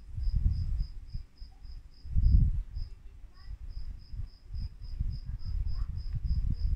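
A cricket chirping steadily, a high thin pulse about four times a second, over gusty low wind rumble on the microphone.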